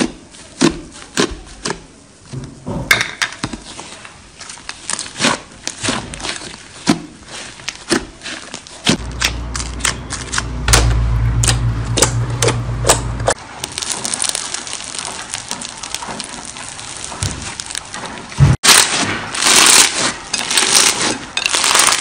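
Slime being squeezed and poked by hand, giving irregular sharp clicks, pops and crackles, with denser crackling near the end. A low hum runs under it for about four seconds in the middle.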